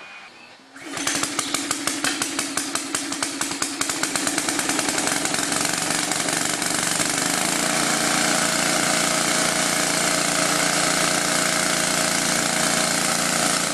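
Portable twin-tank electric air compressor starting up about a second in, pulsing rapidly at first and then settling into a steady run as it pumps up air pressure for an air cannon.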